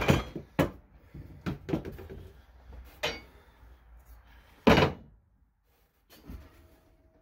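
An old tire being worked off a wheel on a manual tire changer: a string of rubber-and-metal knocks and thuds, the loudest a heavy thump about two-thirds of the way in.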